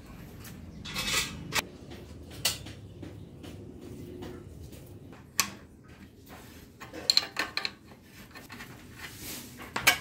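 Metal clinks and knocks of an open-end spanner against the rusty axle nut, fork end and steel spokes of an old bicycle's front wheel. The clinks come singly at first, then as a quick run of them about seven seconds in, with a couple of brief rustling handling noises.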